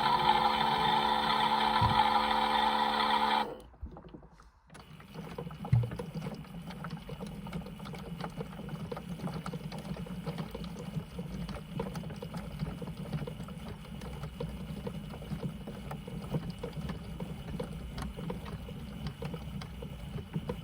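The toy washing machine's small battery drum motor runs steadily with a low hum and light rattling, as in a wash cycle. It starts about a second after a loud, steady buzzing tone, which stops suddenly about three seconds in.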